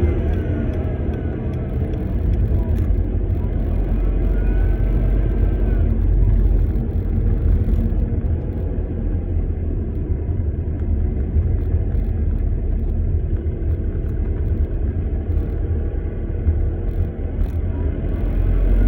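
Volkswagen Passat B6's 2.0 TDI diesel (BMP engine) running with a heavy low rumble, and a faint whistle that rises and falls in pitch a few times: the unwanted whistle the owner is chasing.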